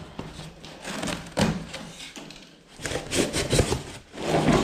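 Packaging being handled: a cardboard box and a plastic-wrapped air-conditioner indoor unit knocked and rubbed, with a few scattered thuds.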